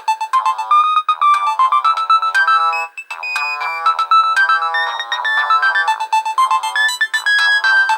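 Nokia 1110i ringtone: a quick electronic melody of short beeping notes, often several sounding together, with a brief break about three seconds in.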